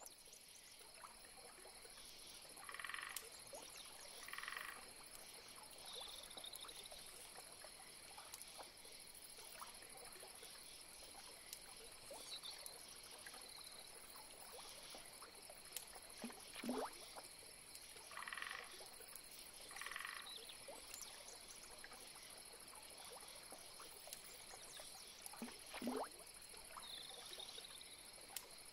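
Frogs calling over a steady high-pitched insect drone: pairs of short pulsed croaks about a second and a half apart, heard twice. Two brief calls slide sharply downward and stand out as the loudest sounds.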